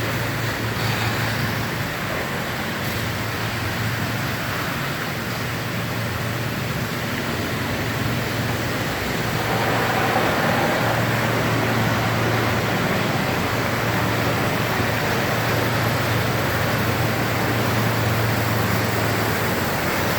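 A heavy diesel engine running steadily under a broad rush of noise, getting a little louder about halfway through.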